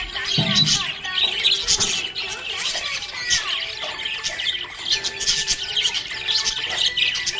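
A flock of small pet parrots chirping and squawking, many short high calls overlapping without pause.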